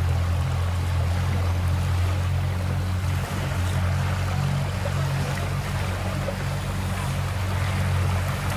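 Outboard motor of an inflatable boat running steadily with a low hum, under the wash of water around the hull.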